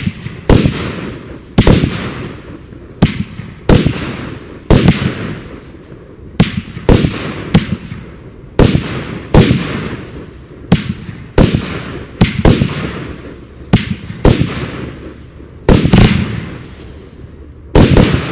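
A 40-shot firework compound cake firing dahlia shells in quick succession. Sharp, powerful booms come about once a second, some in close pairs, each trailing off in a long echo.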